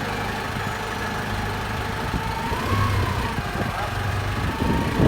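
Nissan forklift engine running steadily, with a brief rise and fall in pitch about halfway through.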